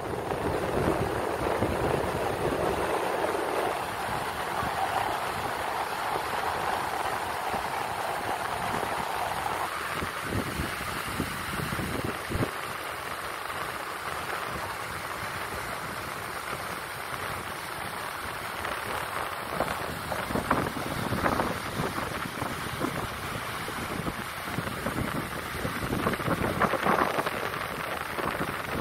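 Wind rushing on the phone microphone over the steady wash of low surf on a flat beach, with gusty bumps in the second half.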